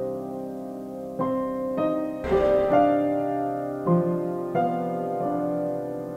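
Slow piano music of held chords, a new chord struck every half second to a second.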